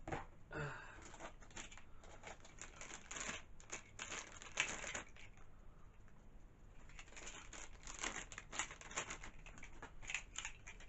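Toy packaging being handled and opened: plastic and cardboard rustling and crinkling with many irregular light clicks and taps.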